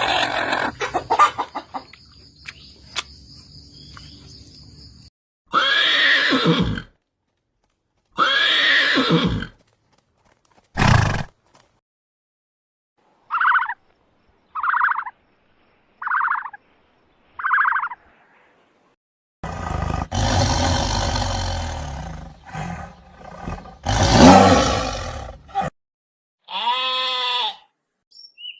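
A run of short calls from several different animals, cut one after another: two long calls, then four short evenly spaced calls, a stretch of rough noisy calling, and a pitched call near the end.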